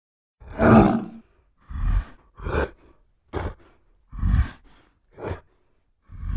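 Film sound effect of a giant gorilla's vocalizations: seven short, separate grunting roars with silence between them. The first, about half a second in, is the longest and loudest.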